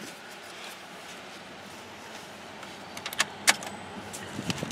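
Car keys jangling, with a few sharp clicks about three seconds in as the key goes into the ignition.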